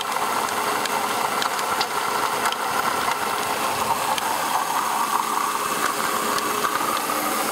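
2004 Ford Taurus engine running steadily, with a steady grinding noise from a spinning part at the front of the engine. It is a new noise whose cause the owner cannot place; he wonders whether it comes from the air conditioning compressor.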